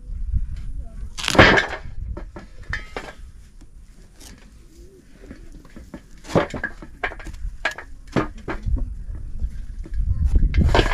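A kitchen knife cutting through a squash and knocking against a steel plate. It makes a string of sharp clicks and scrapes, the loudest about a second and a half in and a busy run of them a little past the middle, over a low rumble that swells near the end.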